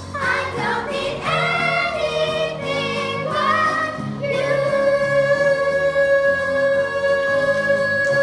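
Children singing a show tune into microphones with musical accompaniment, the melody moving for about four seconds and then settling into one long held final note.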